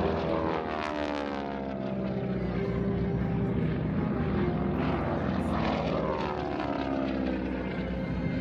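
Propeller-driven aircraft flying low past, their engine drone dropping in pitch as each goes by, once near the start and again about five seconds in.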